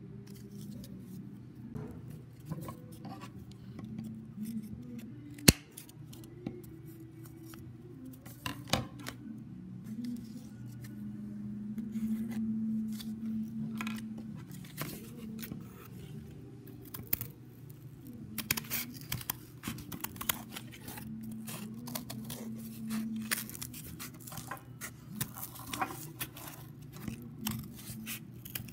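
Steel scissors snipping through thin cardboard in many short cuts, sparse at first and coming quickly one after another in the second half. A single sharp click about five seconds in is the loudest sound, over a steady low hum.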